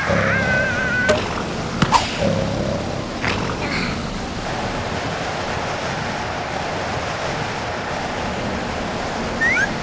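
Steady rushing noise of cartoon storm wind and rain. In the first second a high wavering squeaky call is heard, and a couple of sharp clicks come about two seconds in.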